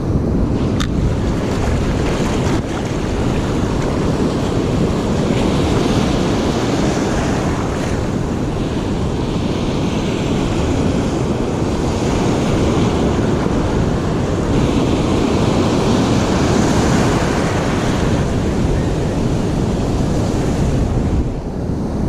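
Ocean surf breaking and washing up the beach, a steady loud rush that swells twice, with wind buffeting the microphone.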